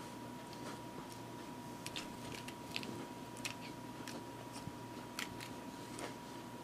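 Cat biting and batting at a Cat Dancer wand toy, its rolled cardboard ends making scattered light clicks and crinkles at irregular moments.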